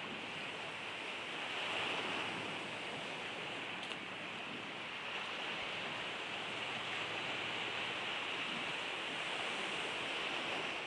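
Steady rush of sea surf, an even wash of noise with no breaks.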